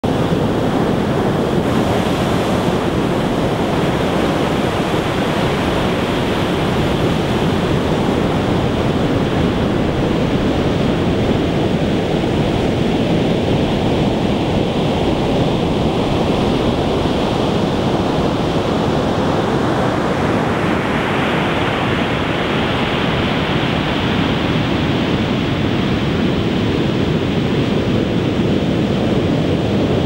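Huge storm surf breaking continuously, a dense, steady rush of crashing waves with no let-up. The higher hiss of breaking foam grows stronger about two-thirds of the way through.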